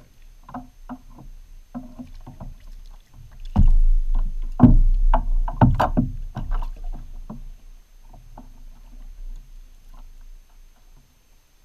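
Irregular knocks, taps and bumps on the plastic hull of a Hobie Outback kayak as fishing gear is handled over its side, with a cluster of louder knocks between about four and seven seconds in, then only faint taps.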